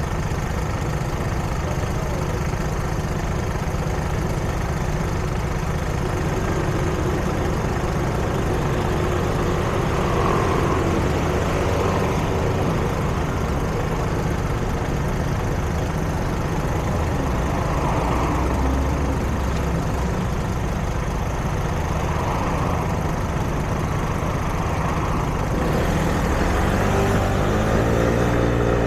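City street traffic: a steady rumble of engines and vehicles, with one vehicle's engine revving up near the end.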